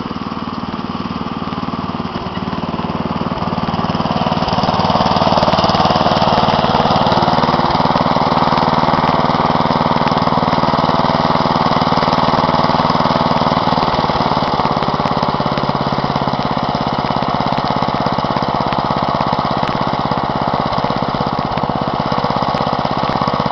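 Wheel Horse garden tractor's 11 hp Briggs & Stratton petrol engine running steadily. It grows louder about four seconds in and then holds an even note.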